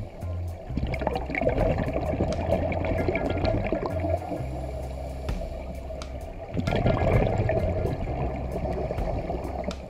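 Scuba diver's exhaled bubbles from the regulator gurgling and rushing past an underwater camera housing, in two surges: about a second in and again after about six and a half seconds.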